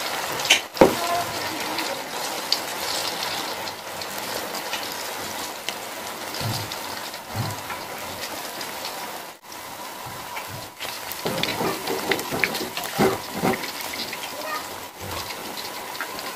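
Pakora batter deep-frying in hot oil in a karahi: a steady crackling sizzle, with knocks of a spoon and spatula against the pan, one sharp one about a second in and a cluster in the second half.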